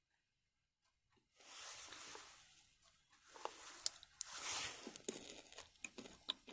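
Faint close-up chewing of a bite of soft hamburger-style bun, with mouth clicks, starting about a second in.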